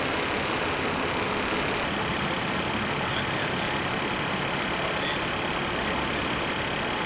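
A vehicle engine idling steadily under a constant hiss.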